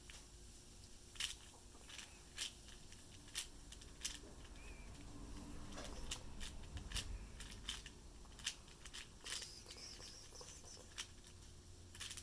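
4x4 Rubik's cube being turned by hand: irregular sharp plastic clicks of the layers snapping into place, spaced unevenly, up to a second or more apart.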